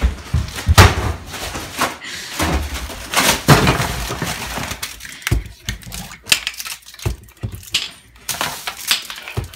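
Hurried clatter of things being grabbed and knocked about on a kitchen counter: repeated sharp knocks and bumps of bottles and containers. There is a stretch of rustling in the first few seconds.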